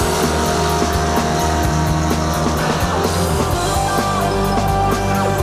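Rock background music with a steady beat.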